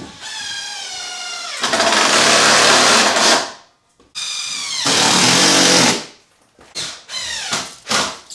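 Cordless impact driver driving screws home. It does two long runs, each starting as a motor whine that turns into a loud hammering rattle as the screw tightens. A few short bursts follow near the end.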